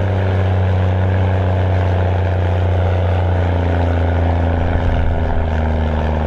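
Mercedes-Benz MB Trac 1500 tractor's six-cylinder turbodiesel running steadily at low revs, the engine note rising slightly about halfway through.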